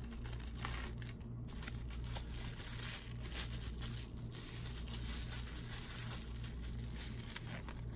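Packaging crinkling and rustling continuously as a small 3D-printed part is unwrapped and handled, over a steady low hum.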